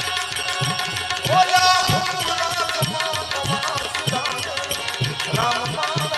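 Instrumental interlude of a Gujarati devotional bhajan: tabla keeping a steady beat, its bass drum strokes bending in pitch about twice a second, under a sustained melodic line.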